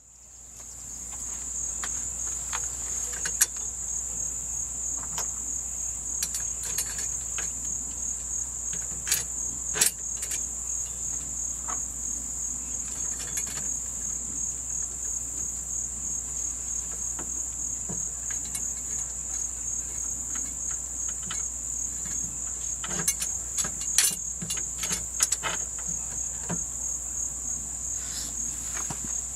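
Crickets chirring in a steady high-pitched drone, with a few sharp clicks and knocks scattered through it, most around the middle and near the end.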